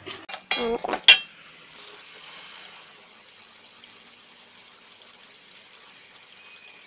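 Chili sambal paste simmering in oil in a wok: a faint, steady sizzle and bubbling hiss as the paste cooks down until its oil separates to the top. Near the start a metal spoon stirs and clinks against the wok.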